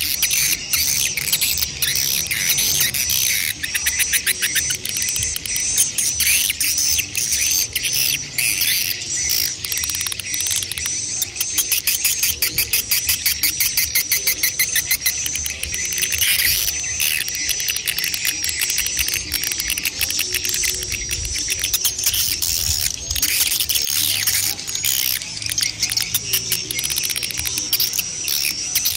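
Swiftlets calling: a dense, continuous high twittering of adult and chick calls, with stretches of rapid clicking chirps about a third of the way in.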